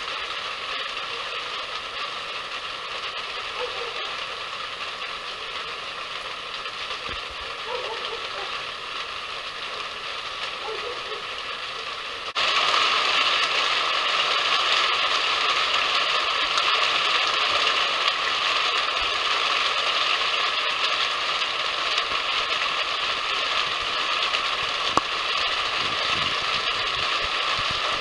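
Steady hiss that steps up abruptly in level about twelve seconds in and then holds steady.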